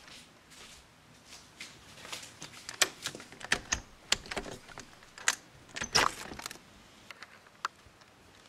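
A window being opened: a quick series of sharp clicks and rattles, with a short scrape a little past the middle.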